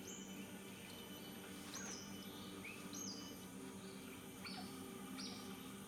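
Smooth-coated otter calling from the TV: a series of short, high chirps about once a second, heard through the television's speaker over a steady low hum.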